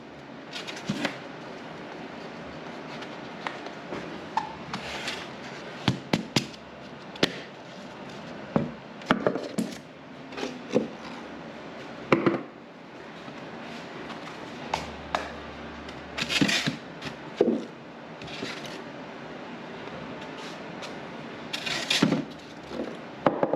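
Scattered clicks, knocks and rustling as the parts and packaging of a WEN spindle sander (spindles, rubber drums, sanding sleeves) are handled and set down, with a few louder bumps and scrapes.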